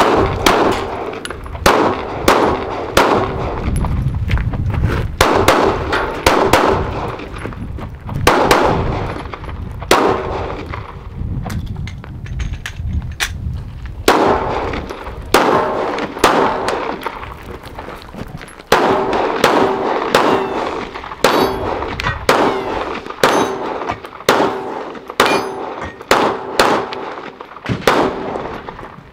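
Glock 25 pistol in .380 ACP fired in quick strings of shots, with short pauses between strings as the shooter moves and reloads. Some shots are followed by a brief metallic ringing.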